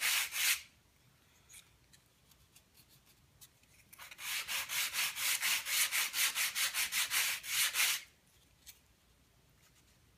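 Sandpaper rubbed back and forth over the leading edge of a glider wing in light finishing passes. A quick run of strokes stops just after the start. After a pause of about three seconds comes a steady run of about four short strokes a second, lasting some four seconds.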